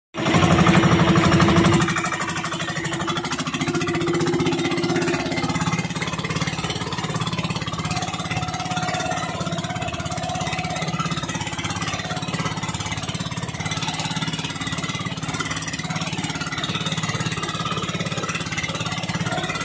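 Small outrigger boat's engine running steadily with a fast, even pulsing beat, over the rush and splash of water along the hull and outrigger floats in choppy seas. It is louder for about the first two seconds.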